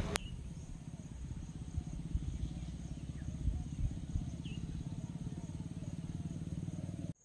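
Motorcycle engine running steadily at low revs, a fast even pulsing, with a couple of faint high chirps over it; the sound cuts off suddenly near the end.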